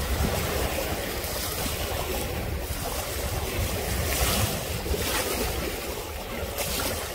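Wind buffeting the microphone over small waves lapping at a sandy water's edge, a steady rumbling hiss.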